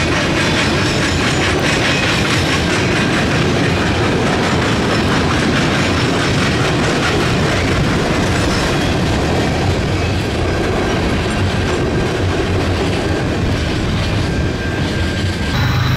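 Freight train of tank cars rolling past: a steady rumble of steel wheels on rail with a clickety-clack over the rail joints. The sound eases a little near the end as the last cars clear.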